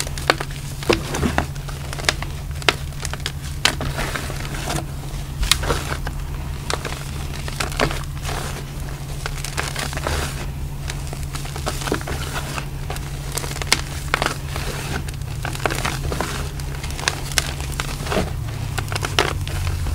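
Hands crushing, squeezing and pressing loose gym chalk powder, giving dense, irregular crunchy crackles, with a few sharper crunches standing out.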